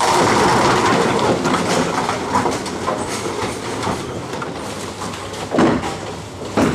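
Bowling-hall din: balls rolling down the lanes in a steady rumble, with the clatter of pins and pinsetter machinery. Two sharp knocks come near the end.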